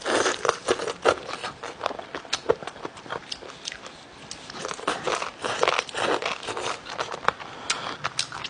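Close-mic biting and chewing of crunchy food in spicy Thai sauce: wet, crackly crunches, thickest at the start and again about five seconds in.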